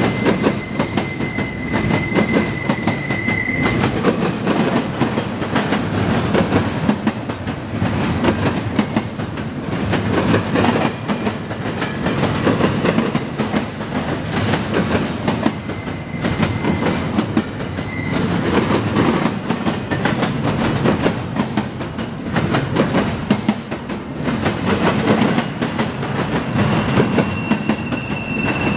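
Double-stack intermodal freight train's loaded well cars rolling past close by: a steady rumble and clatter of steel wheels over the rail joints. A thin, high wheel squeal rises out of it three times: in the first few seconds, around the middle, and again near the end.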